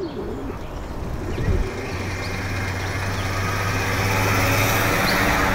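Dump truck engine running as the truck drives along a dirt track, growing steadily louder as it approaches.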